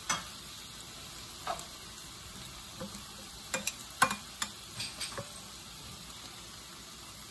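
Metal kitchen tongs clicking and tapping as chicken pieces are lifted from the pan and laid on a plate: a scatter of short, light clicks, with a quick cluster about three and a half to five seconds in, over a faint steady hiss.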